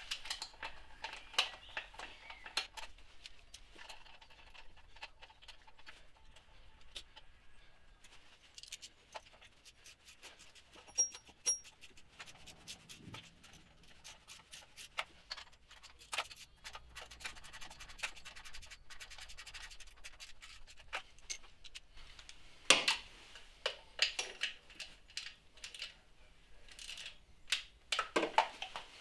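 Hand tools at work on an engine's timing belt covers: a socket ratchet clicking as the small cover bolts are run in and tightened, with clicks and knocks from the cover and tools being handled. A fast, even run of ratchet clicks comes in the middle, and the loudest sharp knock comes about three-quarters of the way through.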